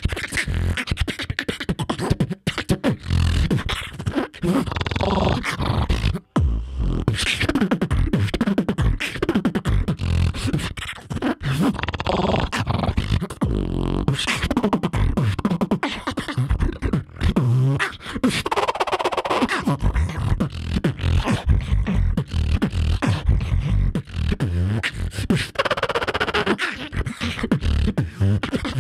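Solo human beatbox routine amplified through a handheld microphone: a rapid, continuous run of vocal kick and snare sounds over deep vocal bass, with pitched vocal lines that slide up and down in several places.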